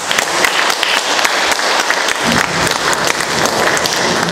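Audience applauding in a large hall, with individual hand claps standing out.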